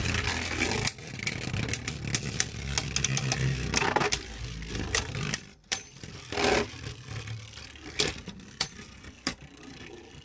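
Beyblade spinning tops whirring on a plastic stadium floor, with many quick clacks as they strike each other and the stadium wall. The whirr drops away about five seconds in, leaving only scattered clicks as one top winds down.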